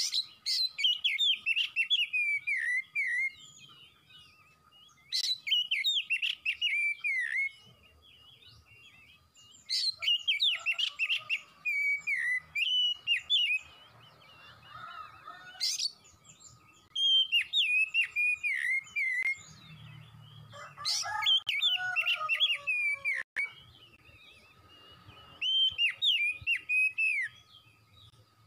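Oriental magpie-robin singing: about six loud bursts of rapid, varied whistled phrases, each two to three seconds long, separated by short pauses.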